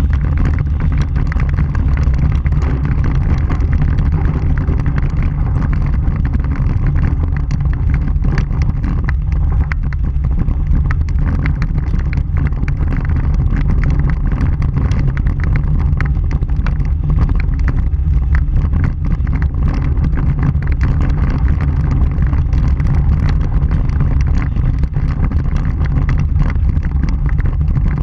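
Vehicle driving on a gravel dirt road, heard from a camera on the front bumper: a loud, steady low rumble of wind and road noise, with a constant crackle of small clicks from gravel under the tyres.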